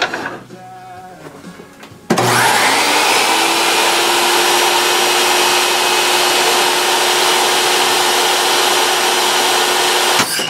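SawStop JSS jobsite table saw's universal motor switching on, the blade spinning up briefly and running steadily for about eight seconds. Near the end a sharp bang as the flesh-sensing brake cartridge fires on contact with a sausage, and the saw stops dead: the blade is braked and dropped below the table and the motor cut.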